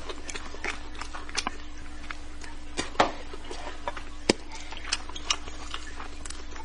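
Close-miked eating sounds: small wet mouth clicks and smacks of chewing spicy braised fish, with a few sharper clicks, the loudest about three and four seconds in, over a steady low hum.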